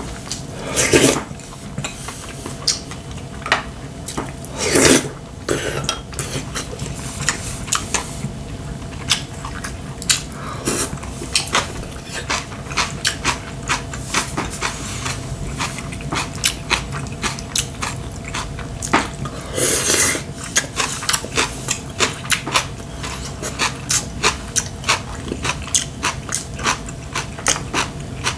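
Close-miked eating: chewing and biting with frequent short wet clicks and smacks, and clinks of spoon and chopsticks against bowls. A few louder bursts come about a second in, around five seconds and around twenty seconds.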